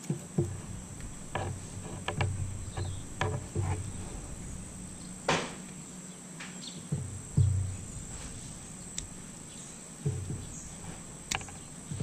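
Scattered sharp metal clicks and a few light knocks as a Leatherman Wave Plus multitool is handled and its tools are opened and closed, the loudest click about five seconds in. Under them a steady high drone of insects such as crickets.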